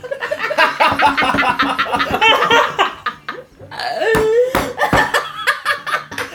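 Hearty, helpless laughter in rapid pulses, dipping briefly about three seconds in, then resuming with a drawn-out high squeal of a laugh.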